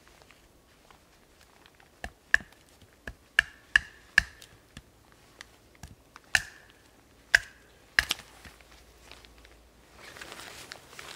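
A wooden baton knocking on the spine of a bushcraft knife to split a piece of wood: about a dozen sharp knocks between about two and eight seconds in, several with a brief ringing after them. Near the end, a softer rough scraping.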